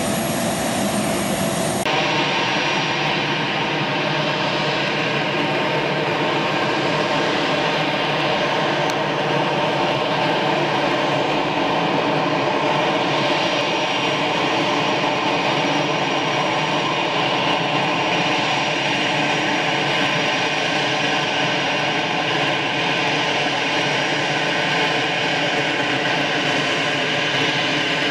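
Jet aircraft engine running steadily: a continuous whine with several steady tones over a broad rush, changing character about two seconds in.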